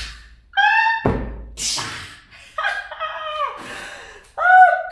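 Dull thumps of a hand chopping down on a filled scatter cushion to crease its top, one about a second in, mixed with a woman's short wordless vocal sounds, the loudest near the end.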